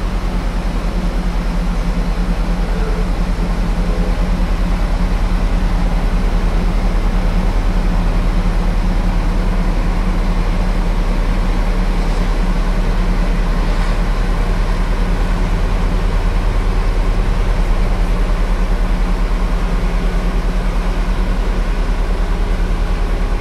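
Steady engine drone of farm machinery running at a constant speed, with a fast, even throb and no change in pitch or level.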